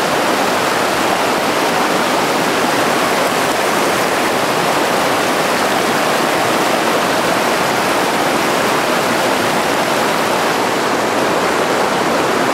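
Mountain river rushing through a boulder rapid: a steady, loud rush of white water.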